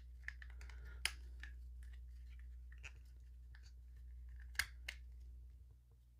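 Small plastic miniature arcade-cabinet pieces clicking and scraping as they are pressed and lined up by hand. There are a few sharp clicks, the loudest about a second in and about four and a half seconds in, with light rubbing between them over a steady low hum.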